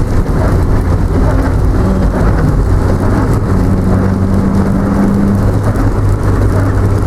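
Heavy rain and a vehicle on the move: a steady rush of noise over a low engine hum whose pitch shifts a little.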